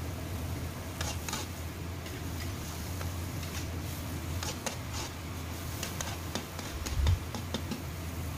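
Metal wok spatula scraping and clicking against a steel wok as spinach and anchovies are stir-fried, in short irregular strokes starting about a second in, over a steady low hum.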